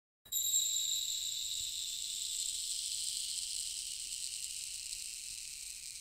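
Sand trickling through an hourglass: a high, steady hiss that starts suddenly and slowly fades.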